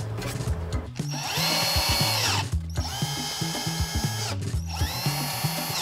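A small electric motor run in three bursts, each spinning up, holding a steady whine and winding down, over background music with a steady beat.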